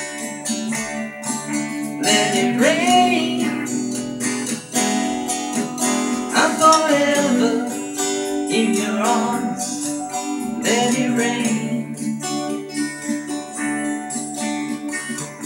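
Music: an instrumental break in a slow song, strummed acoustic guitar under a melody line that glides up and down.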